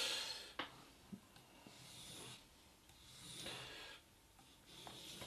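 Steel knife blade drawn in strokes across a wet combination whetstone: a sharper scrape at the very start, then two softer, longer scraping strokes, with a few light clicks.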